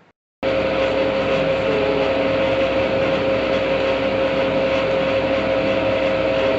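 A machine running steadily: an even rushing noise with a steady mid-pitched hum through it, starting abruptly about half a second in.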